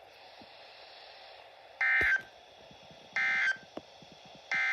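Emergency Alert System end-of-message data tones from a NOAA weather radio's speaker: three identical short, shrill digital squawks about 1.4 seconds apart, the first about two seconds in, marking the end of the severe thunderstorm warning broadcast. Faint radio hiss fills the gaps between them.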